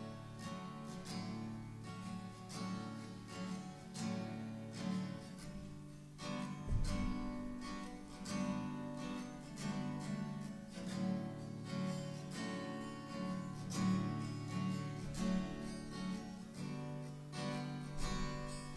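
Acoustic guitar played solo, chords sounded in an even rhythm as an instrumental intro, with no singing yet.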